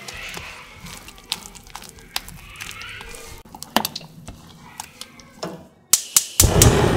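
A silicone spatula stirs thick zucchini-and-flour batter in a glass bowl, with scattered scrapes and taps against the glass. Near the end a gas stove's igniter clicks about four times, then the burner catches with a loud, low whoosh.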